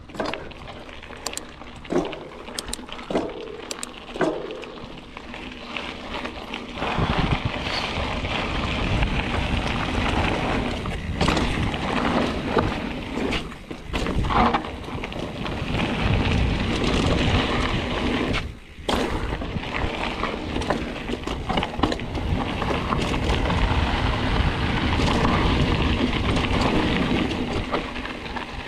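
Mountain bike riding down a dirt trail: tyres rolling over packed dirt and loose gravel, the bike rattling over bumps, and wind buffeting the microphone. Quieter with a few separate clicks and knocks for the first several seconds, then a louder steady rush from about seven seconds in, broken by a short drop about two-thirds of the way through.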